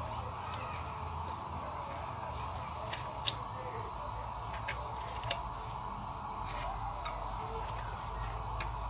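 Soft wet squishing of hands packing minced onion stuffing into a raw duck, with a few faint clicks, the clearest about three and five seconds in, over a steady low hum.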